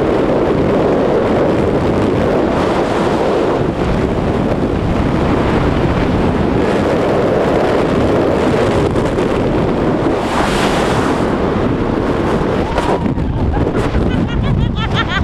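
Freefall wind rushing hard over the camera microphone during a tandem skydive, a loud, steady roar. Near the end the roar starts to break up into short flutters as the main parachute deploys.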